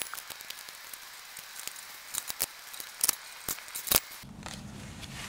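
Small plastic wire-harness connectors and wires being handled and pushed together, giving a scatter of light sharp clicks and rustles, a few louder clicks about three to four seconds in. Near the end a faint steady low hum comes in.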